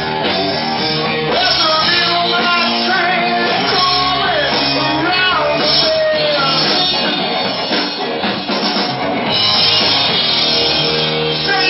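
Live rock band playing: electric guitars, electric bass and drum kit.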